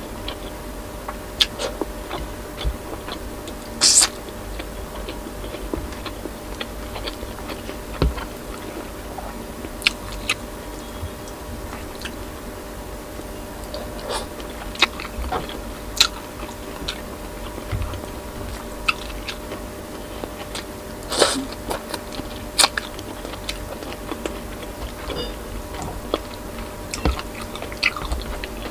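Close-up chewing of a person eating boiled pork, rice and water spinach by hand, with many short wet smacks and clicks scattered throughout.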